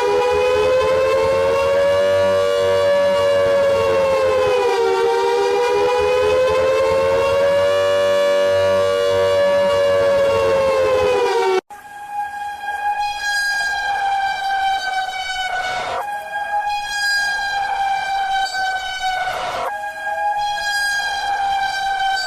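Emergency alert alarm tones played in reverse. A sustained, harsh multi-tone siren slowly wavers up and down in pitch, then cuts off about halfway through. A different, higher steady alarm tone takes over, broken by brief gaps every couple of seconds.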